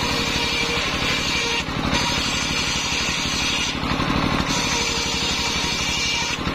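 Large engine-driven circular saw ripping planks of waru wood: the engine's rapid steady beat runs underneath, and the hiss of the blade cutting breaks off briefly about two seconds in, again around four seconds and near the end, as one board clears the blade and the next is fed in.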